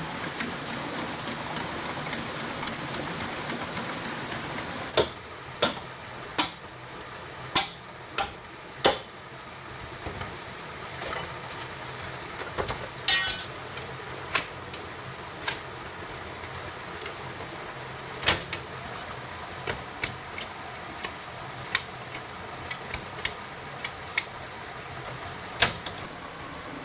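Bamboo being worked by hand: a run of six sharp knocks between about five and nine seconds in, then scattered lighter taps and clicks, over the steady rush of a forest stream.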